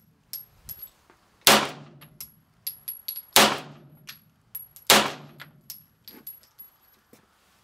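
Beretta 92FS 9mm pistol fired three times, about a second and a half to two seconds apart, each shot sharp and trailing off in a short echo. Fainter sharp clicks come between the shots.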